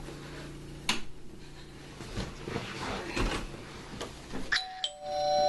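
A sharp click about a second in and scattered knocks and rustles, then near the end a two-note doorbell chime, higher note then lower, ringing on.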